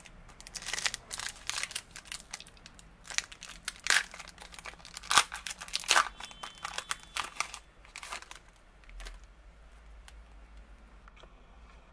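Foil wrapper of a trading-card pack being torn open and crinkled by hand: a run of sharp crackling rips, loudest about four to six seconds in, thinning out after about eight seconds.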